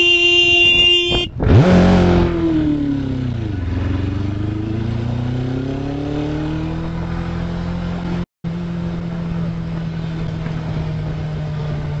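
A vehicle horn held for about a second as a warning honk, then a motorcycle engine revs up sharply, eases off, and climbs again as it accelerates before settling into a steady run.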